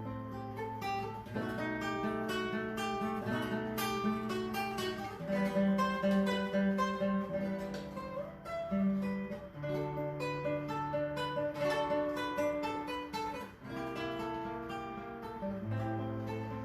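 Acoustic guitar playing an instrumental passage of plucked notes over held bass notes, without singing.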